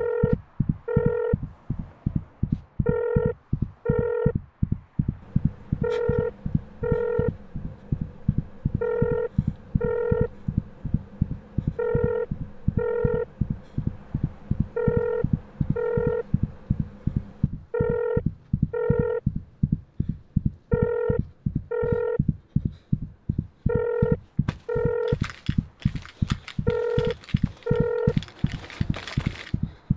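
Film sound design: a telephone ringing in double rings, a pair of short tones every three seconds, over a fast, steady, heartbeat-like low thudding. Over the last few seconds a harsh, noisy sound builds up and then stops.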